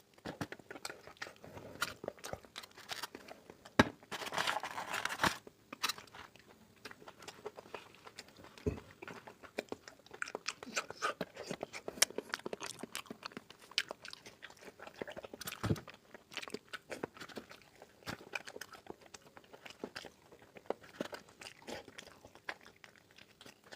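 Close-miked chewing and biting of mutton curry with rice: a steady stream of short wet smacks and clicks, with a longer noisy stretch about four seconds in.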